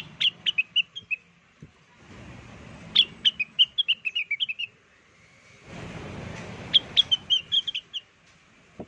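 Cucak wilis (rengganis) song played as a bird lure: three quick phrases of rapid, high chirping notes a few seconds apart, over a low background hiss.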